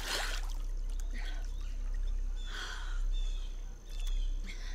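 Water splashing as a swimmer bursts up through a lake's surface, fading within the first half second, then softer sloshing and trickling as she moves in the water, three times more. A few short bird chirps.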